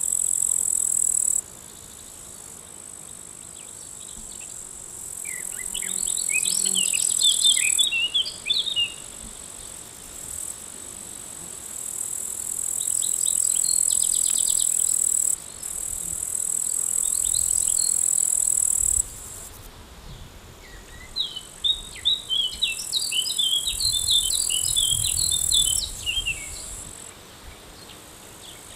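An insect's high, steady buzzing song in bouts of several seconds that switch on and off abruptly. A small bird twitters in quick chirps twice: about five seconds in and again around the twenty-second mark.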